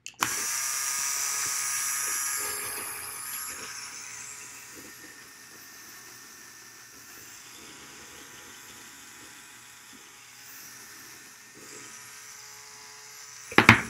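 Small electric motor of a LEGO Technic helicopter model whirring, turning its plastic gear train (12-tooth gears driving 20-tooth gears) and spinning the main and tail rotors. It is louder for the first two seconds or so, then runs on more quietly and steadily. A sharp click comes near the end.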